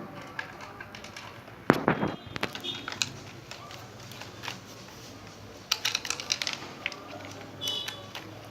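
Plywood parts of a model combine harvester knocking and clattering as the header is fitted on by hand: a burst of knocks about two seconds in and another cluster of clicks around six seconds.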